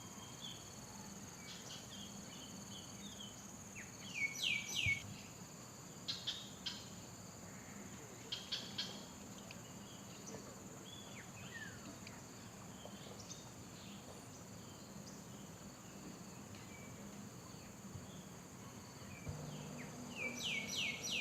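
Steady high-pitched insect drone from crickets or cicadas, with birds calling over it in quick bursts of three or four short falling chirps, a few times.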